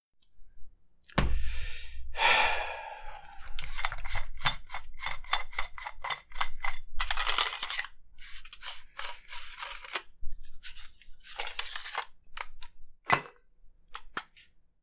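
A toy lightsaber hilt being taken apart by hand: its threaded metal and plastic sections scrape as they are unscrewed, with runs of quick clicks and a few knocks as the parts are handled and set down.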